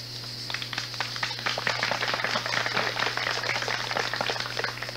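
A small crowd applauding, starting about half a second in and stopping abruptly near the end, over a steady low hum and hiss from the recording.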